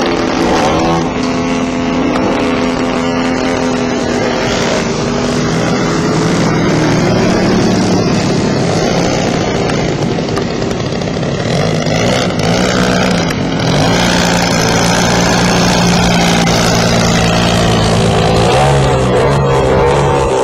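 Two-stroke gas engine of a 50cc-class radio-controlled MXS-R aerobatic plane running in flight. Its note rises and falls repeatedly as the throttle changes and the plane manoeuvres, with steady stretches in between.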